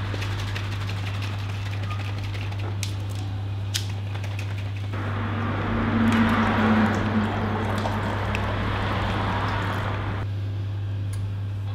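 Coffee poured from a glass carafe into a glass mug: a steady splashing pour starting about five seconds in and lasting about five seconds. A couple of light clicks come before it, over a steady low hum.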